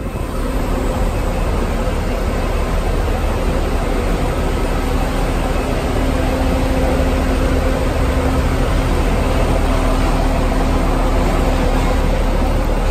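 Airport shuttle bus engine running steadily: a loud, constant low rumble with a steady hum over a wash of engine and apron noise.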